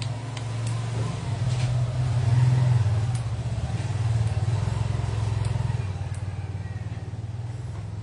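A motor engine running with a low, steady pulsing drone that swells a few seconds in and eases off near the end, with a few faint clicks.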